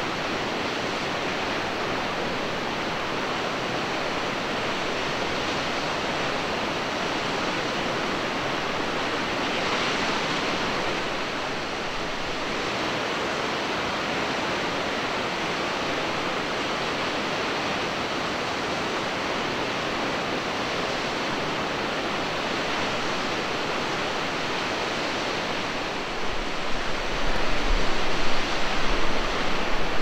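Tall single-drop waterfall heard from across a gorge: a steady rushing hiss of falling water with no break. Near the end a low, uneven rumble comes in and the level starts to jump.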